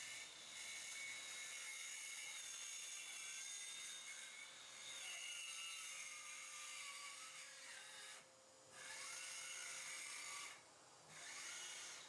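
Power saw cutting into a luxury vinyl floor plank, its high-pitched motor whine wavering in pitch under load. The cutting stops briefly twice in the last few seconds.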